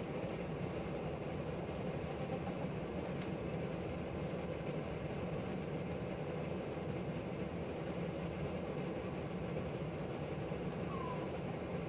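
Steady whir of a running room fan unit, even in level throughout, with a faint click about three seconds in.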